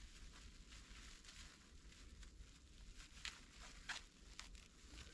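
Near silence with faint scrapes and a few light ticks of wooden poles being handled, the two clearest about three and four seconds in.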